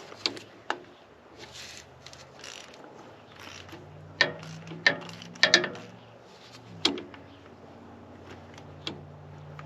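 Hand socket ratchet on an extension and swivel working a tight oil pressure sensor switch loose, with scattered metallic clicks and clanks of the tool against the fitting. A faint steady low hum runs underneath.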